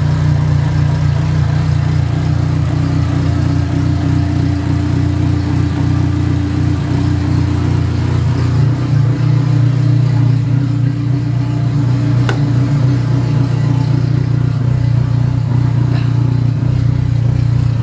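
Turbocharged four-cylinder engine of a Dodge Neon SRT-4 with a big Precision turbo fitted, idling steadily and loud.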